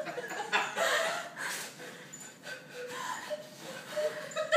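A person's breathy puffs and gasps: several short, noisy bursts of breath with faint bits of voice between them.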